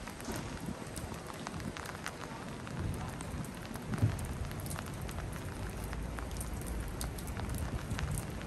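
Rain falling: a steady hiss dotted with many small drop ticks, with one louder low thump about four seconds in.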